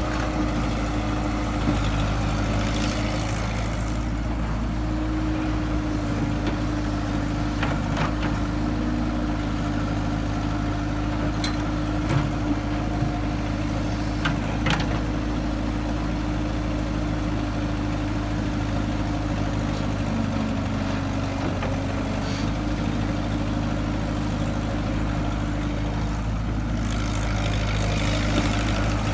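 Excavator engine running steadily at an even pitch, with a couple of brief light knocks about halfway through.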